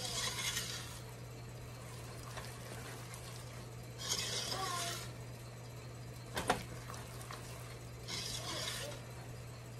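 A spatula stirring quick oats into a thick chocolate and peanut butter mixture in a stainless steel pot, coating the oats: three bursts of scraping about four seconds apart, with a sharp knock about six and a half seconds in. A steady low hum runs underneath.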